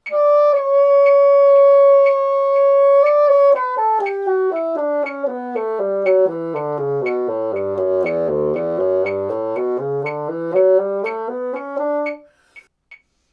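Moosmann bassoon playing a D major scale from the top. It holds the high D for about three and a half seconds, then steps down note by note to the bottom of its range and climbs back up, stopping about a second before the end. A faint steady tick sounds about twice a second underneath.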